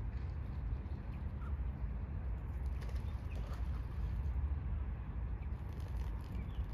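Outdoor ambience: a steady low rumble with faint, scattered chirps of small birds.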